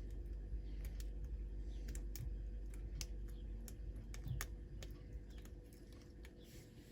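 Lock pick working the pins of a pin-tumbler lock: small, irregular metallic clicks and ticks as the pins are lifted and set under tension.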